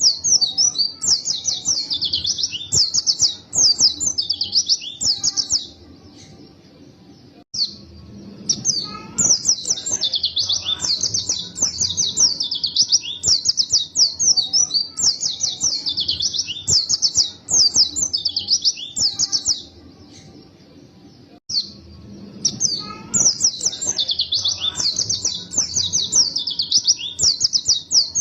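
White-eye (pleci) singing a long, fast, high-pitched twittering song in runs of several seconds, with two short pauses along the way.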